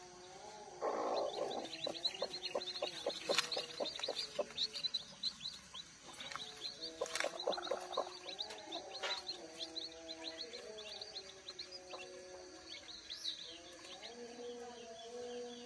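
Newly hatched chicks peeping: a busy stream of quick, high, falling cheeps, most of them in the first two thirds, over soft background music.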